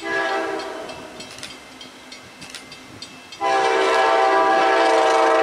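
Amtrak Genesis diesel locomotive's air horn sounding as the train approaches. A blast at the very start fades away over about a second, then a long, loud blast begins about three and a half seconds in and holds on.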